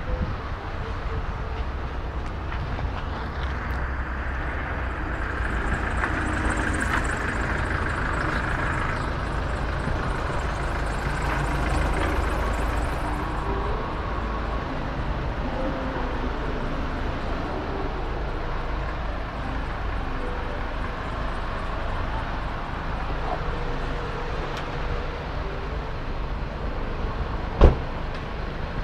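Steady low rumble of vehicle engines and street traffic, with one sharp knock near the end.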